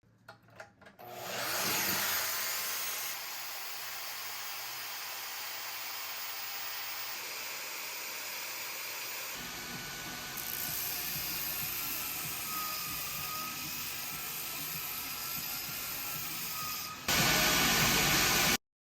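CNC plasma cutter cutting: a few clicks, then a hiss that builds up and runs steadily, with a faint wavering whistle from about halfway. It gets louder near the end and cuts off abruptly.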